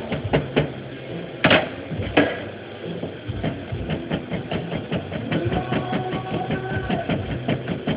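Kitchen knife chopping chiles on a plastic cutting board: a steady run of quick knocks that gets faster in the second half, with two louder knocks about one and a half and two seconds in. A steady machine hum runs underneath.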